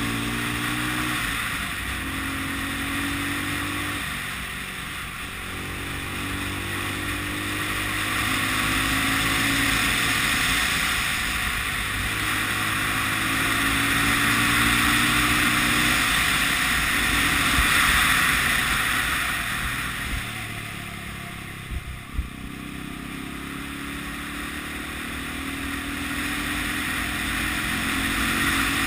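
Single-cylinder four-stroke engine of a 1980 Honda CB 250 RS motorcycle accelerating and easing off on a winding road. Its note climbs in steps and drops back at the gear changes, under heavy wind rush on the helmet or bike-mounted microphone.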